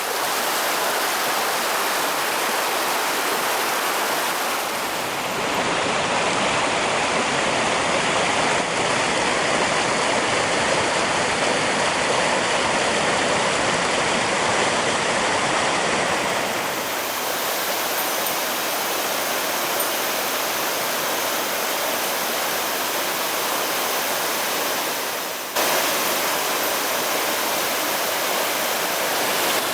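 Rushing water of a mountain headwater stream tumbling over rocks: a steady roar that shifts abruptly in tone and level three times.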